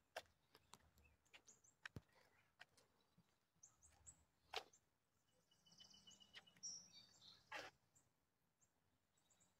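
Near silence, with a few faint sharp clicks and some brief faint high chirps.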